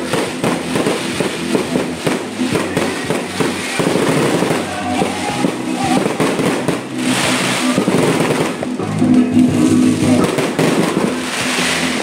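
Fireworks and firecrackers popping and crackling in rapid succession over loud music, with two longer hissing bursts about seven and eleven seconds in.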